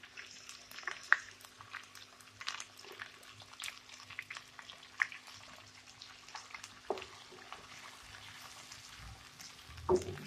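Sliced onions frying in hot cooking oil in a wok: a steady sizzle with many scattered crackles and a few louder pops, over a faint steady low hum.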